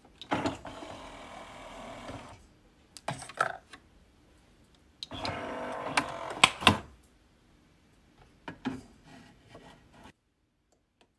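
Handling sounds at a Nespresso capsule coffee machine: the lid opened, a capsule loaded, and the lid shut, with sharp clicks and clatters, the loudest a pair of clicks midway. It cuts to silence near the end.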